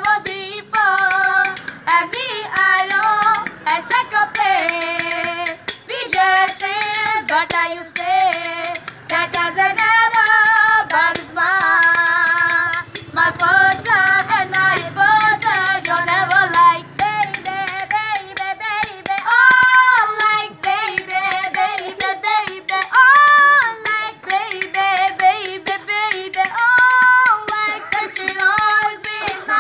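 Two women singing a song together in high voices, with long held notes and sliding pitches.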